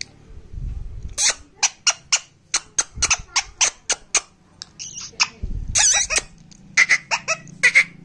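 Indian ringneck parakeet chattering: a rapid string of short high chirps, clicks and squeaks starting about a second in, with a longer call a little before six seconds.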